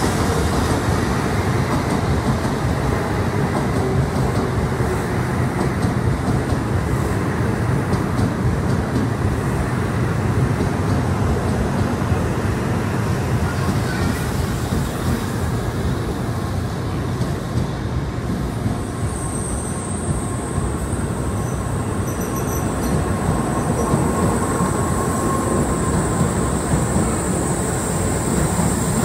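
Shinkansen trains at a station platform: a continuous rumble of a train rolling on the adjacent track. About two-thirds of the way through, a high steady whine joins in as the N700A beside the platform pulls out.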